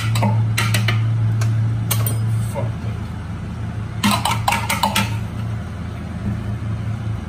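Kitchen utensils clinking and scraping against dishes and pots in a few short clusters, over a steady low hum.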